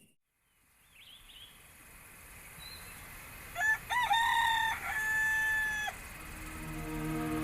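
A rooster crowing once: a long, pitched call of about two seconds that rises, holds, then drops off. Faint small-bird chirps come before it, and soft music fades in near the end.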